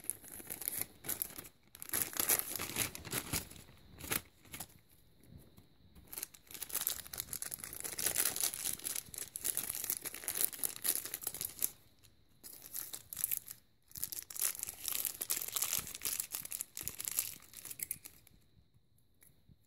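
Thin clear plastic packaging crinkling and tearing as it is opened by hand, in stretches of crackle with short pauses, stopping near the end.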